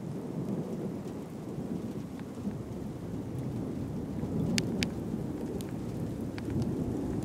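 Thunder rumbling low and long through rain, swelling in the second half, with a few sharp ticks about halfway through.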